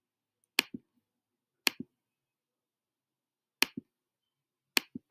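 Computer clicking: four sharp click pairs, each a press followed quickly by a release, spaced one to two seconds apart.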